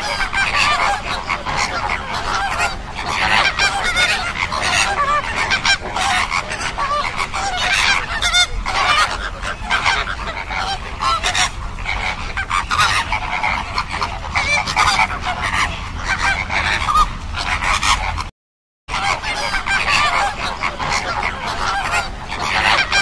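A flock of American flamingos honking, many calls overlapping without a pause. The sound cuts out for about half a second a few seconds before the end, then the calling resumes.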